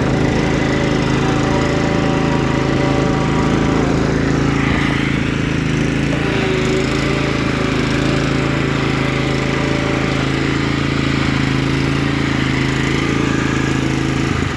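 15 hp single-cylinder Kohler Command engine of a riding lawn mower running steadily.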